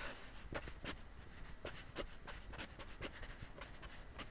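Sharpie marker drawing lines on paper: a series of short, irregular strokes as a rectangle is sketched.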